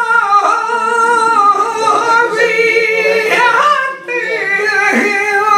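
A man singing a flamenco malagueña unaccompanied: long held notes that waver and bend through ornamented turns, with a short breath about four seconds in.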